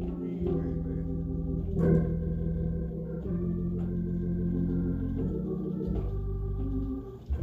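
Organ playing sustained chords that change every second or two, with a brief thump near the end.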